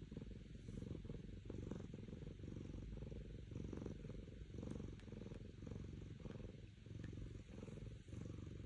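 Domestic cat purring steadily, a low, continuous rumble.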